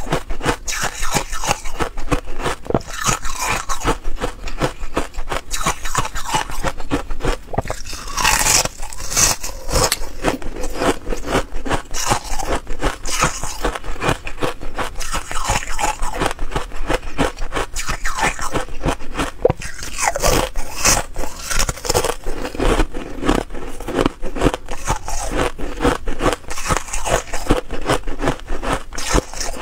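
Thin sheets of ice being bitten and chewed: a dense run of sharp crunching and crackling, one bite after another.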